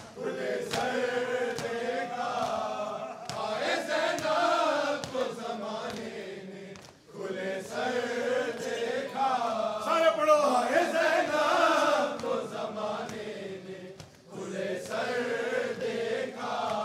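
Group of men chanting a Shia noha lament in unison, in long phrases with short breaks between lines. Sharp slaps of matam chest-beating come roughly once a second.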